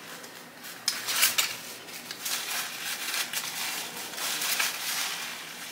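Paper being crumpled and rubbed in the hands, giving an irregular run of crinkles and crackles from about a second in.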